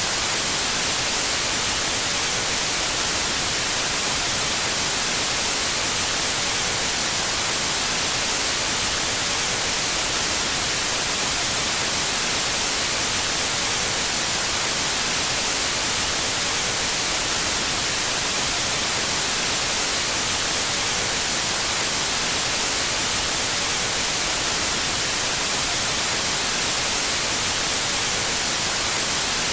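Steady static hiss of white noise, even and unchanging, with no tones or breaks.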